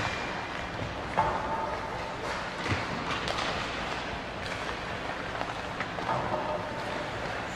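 Table hockey game in play: knocks and clatter of the puck and the rod-driven player figures on the plastic table, with the sharpest knock about a second in.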